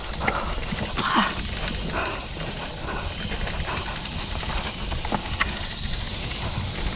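Mountain bike rattling over a rough dirt trail: a steady low rumble with scattered knocks and clicks.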